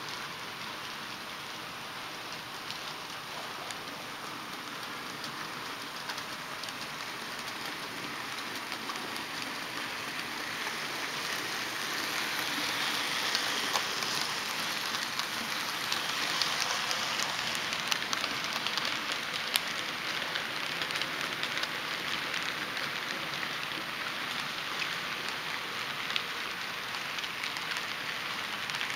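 Model steam locomotive and freight train rolling along the track: a steady rattling hiss of wheels and motor that grows louder as the engine comes close, about halfway through, with occasional sharp clicks at rail joints.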